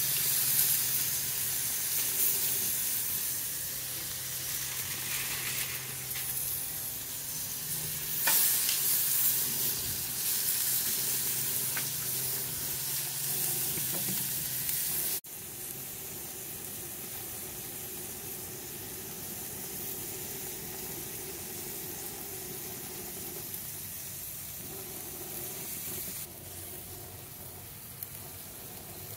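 Raw New York strip steaks sizzling loudly as they go down on hot grill grates, searing. The sizzle swells again about eight seconds in, then drops to a quieter, steady sizzle about halfway through.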